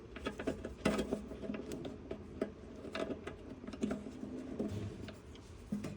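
Cooler door latch parts being handled and fitted together by hand: scattered light clicks and taps, the sharpest about a second in.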